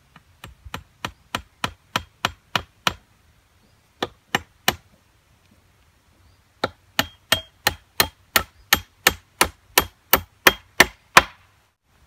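A nail being driven into a wooden oak-slab tabletop with the back of a hatchet head: sharp strikes about three a second, in three runs of about nine, then three, then about fifteen, the last strikes the loudest.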